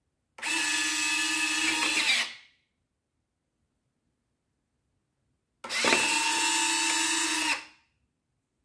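Electric retract units of an RC model plane's retractable landing gear whining as they fold the wheels up, then again about three seconds later as they lower them. Each run is a steady motor whine lasting about two seconds.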